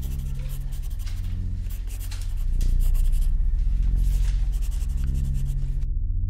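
Paper rustling and crinkling as long strips of paper are handled, over a low, slowly pulsing synthesizer drone. The rustling stops abruptly near the end, leaving only the drone.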